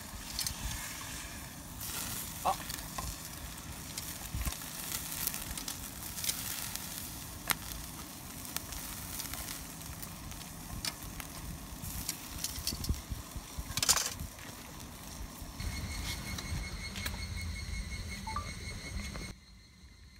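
Meat sizzling on the wire grate of a charcoal grill, with sharp clicks of metal tongs on the grate as the slices are turned. The sizzle cuts off suddenly near the end.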